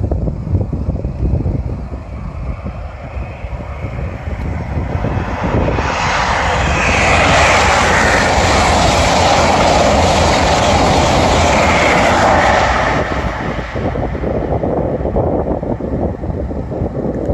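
Express passenger train passing close at high speed on a main line: a loud rush of wheel and air noise that swells in about six seconds in, holds for about seven seconds, then falls away. A low rumble of wind on the microphone runs underneath.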